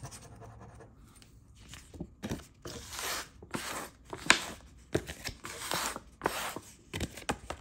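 Paper scratch-off lottery tickets being handled and scratched: irregular short scratching and rustling strokes, starting about a second and a half in.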